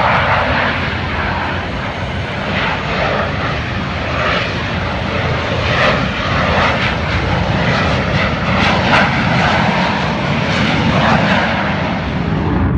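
Airplane engine noise from an aircraft flying overhead, loud and steady for several seconds with a gently wavering level.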